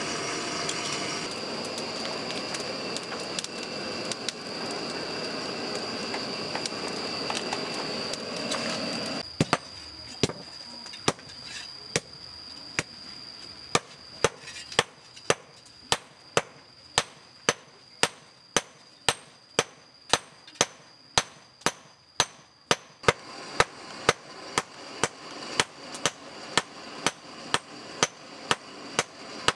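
Blacksmiths hand-forging a red-hot blade on a small anvil, with sledgehammers striking metal on metal. The blows start about nine seconds in and keep an even rhythm of about two a second.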